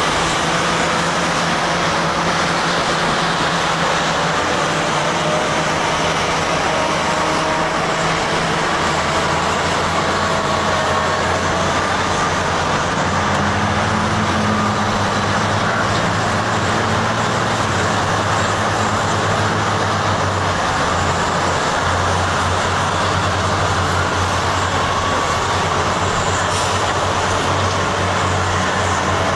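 Heavy diesel engines of Cat 657 wheel tractor-scrapers running steadily under load, with a faint whine drifting in pitch. The low engine note grows stronger about nine seconds in.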